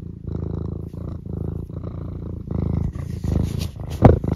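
Domestic tabby cat purring right at the microphone, in steady cycles of about half a second with short breaks between them. About four seconds in there is a single loud bump as the cat's fur presses against the microphone.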